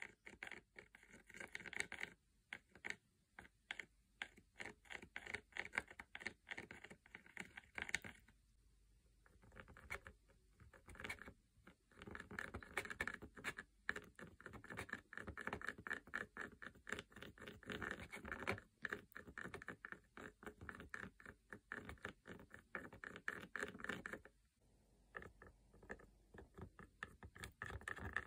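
Paintbrush mixing thick paint on a plastic palette: faint scraping with many small clicks, in stretches broken by brief pauses about 9 and 25 seconds in.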